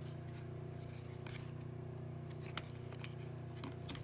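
Trading cards being handled: a few soft flicks and scrapes of card stock sliding against card stock, over a steady low hum.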